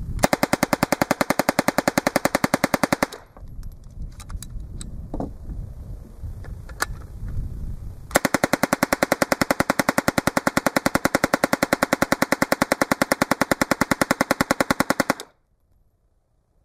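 9mm M-11/9 submachine gun with a MAX-31 mk2 upper firing full-auto: a rapid burst of about three seconds, a few faint clicks, then a longer continuous burst of about seven seconds that stops abruptly.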